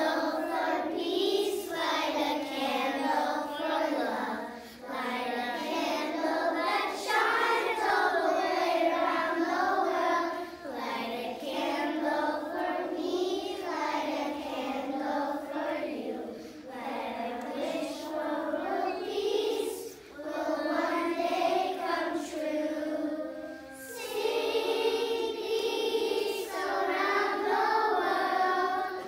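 Group of young children singing a song together in unison, in phrases with short pauses between them.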